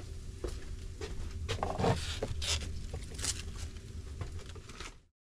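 Food-prep handling sounds at a wooden kitchen counter: rustling and light clicks and knocks as vegetables and bowls are handled, over a low steady hum. It cuts off abruptly near the end.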